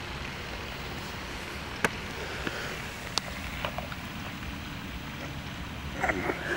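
Steady outdoor background noise with no clear source, and a few faint clicks.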